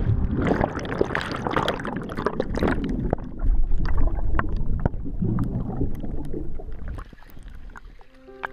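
Swimming-pool water heard from a camera plunged under the surface: a splash at the start, then a loud churning rush of bubbles full of crackles and pops, easing off about seven seconds in.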